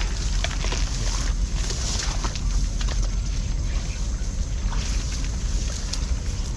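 Steady low rumble of wind on the microphone, with light rustling and scattered clicks from grass and undergrowth being disturbed.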